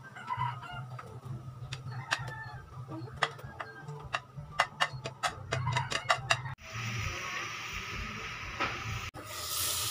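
Slotted spatula tapping and scraping on a plate as pork tocino slices are pushed off into a frying pan: a quick run of sharp clicks. About six and a half seconds in, this gives way to a steady hiss of the tocino simmering in water in the pan, turning to a brighter sizzle near the end.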